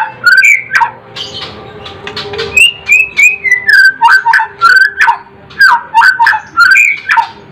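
White-rumped shama singing: a run of loud, clear whistled phrases, the notes sliding up and down, broken by sharp clicking notes, with one falling string of notes in the middle.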